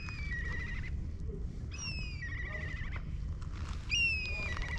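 A bird calling twice, each call a high whistle sliding down into a warbling trill, over a steady low rumble.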